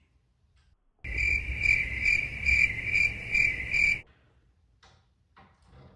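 Cricket chirping sound effect: a steady run of high, pulsing chirps, about two or three a second, that starts abruptly about a second in and cuts off suddenly three seconds later. It is the stock "crickets" gag for an awkward silence.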